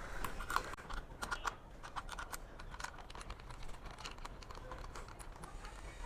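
Irregular light clicks and taps of hand tools and small metal parts being handled while unbolting motorcycle parts, thick for the first two seconds, then sparser.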